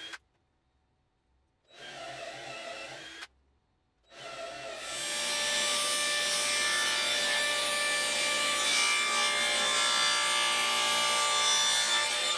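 A cordless drill runs for about a second and a half, boring a hole in a wooden block. About four seconds in, a table saw starts up and runs steadily while a board is fed through the blade; the saw is the loudest sound.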